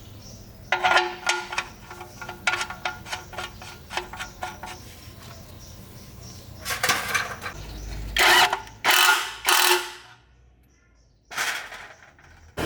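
Hand tools working on metal tractor parts. For the first few seconds there is a run of quick metallic clicks and taps, a few a second, with a ringing note. Then come about five longer strokes of under a second each.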